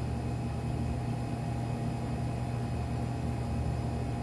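Steady low mechanical hum of a kitchen appliance, unchanging throughout.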